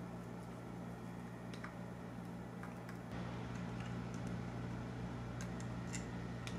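A few faint light clicks and taps of small screws and the portable DAC/amp's case being handled during reassembly, over a steady low electrical hum that gets a little louder about three seconds in.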